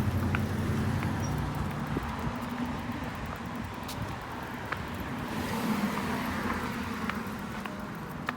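A motor vehicle engine running steadily, with a low hum that starts abruptly and a few light clicks over it.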